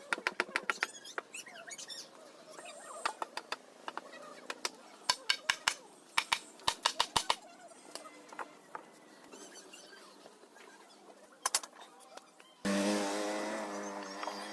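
Quick runs of sharp taps and knocks, as in woodworking on a bed-frame joint. Near the end a steady pitched hum starts suddenly and slowly fades.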